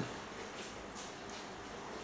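Faint steady background hiss of room tone, with one faint click about a second in.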